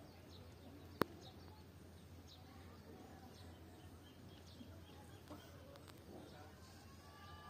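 Faint bird chirps now and then over a low steady hum, with one sharp click about a second in.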